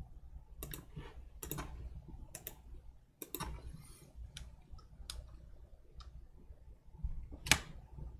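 Sparse, irregular clicks of a computer mouse and keyboard keys, a few seconds apart, one louder click near the end, over a faint steady low hum.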